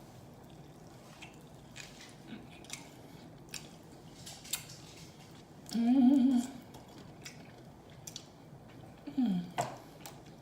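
Close-miked chewing and mouth smacking while eating fried chicken and fries, with scattered short crunchy clicks. About six seconds in there is a brief hummed vocal sound, and a shorter one near the end.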